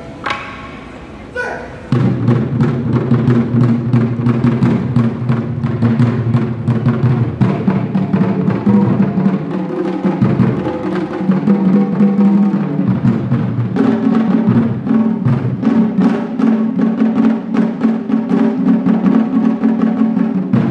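A pipa plucks a few notes. About two seconds in, barrel drums struck with sticks come in loudly with fast, driving rhythmic drumming, and the pipa carries on playing over them.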